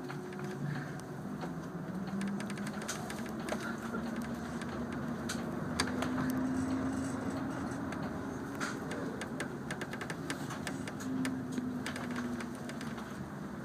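Airport apron bus driving, heard from inside the cabin. Its engine drone rises and falls in pitch, with frequent small rattles and clicks from the bus body.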